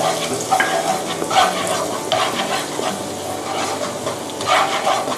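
Minced garlic sizzling in melted butter in a nonstick wok, with a plastic slotted spatula scraping and stirring it around the pan at irregular strokes. This is the garlic being fried until fragrant, kept moving so the butter does not burn.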